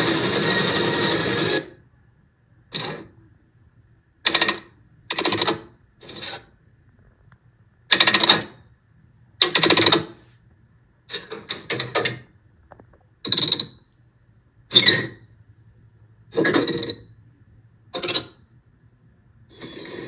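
Steam locomotive sound effects: the continuous running sound of the train cuts off after about a second and a half. It is followed by a dozen or so separate short blasts of noise, a second or two apart, and the running sound returns near the end.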